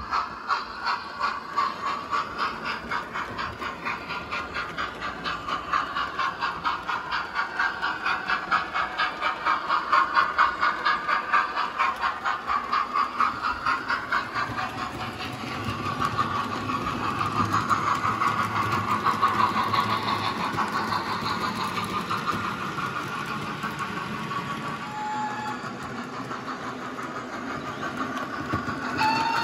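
OO gauge model GWR steam locomotive hauling wagons along the track, running with an even, fast rhythmic beat of about three pulses a second that softens in the second half.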